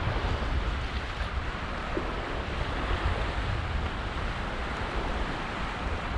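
Steady wind buffeting the microphone over the continuous wash of lake waves.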